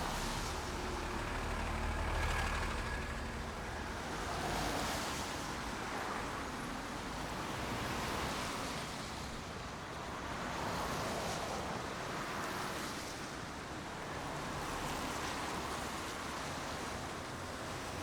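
Rain, a dense even hiss that swells and eases every two to three seconds over a low rumble.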